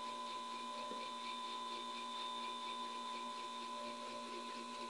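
Mini solid-state Tesla coil kit running, a steady electrical hum and buzz with several steady high tones over a faint hiss.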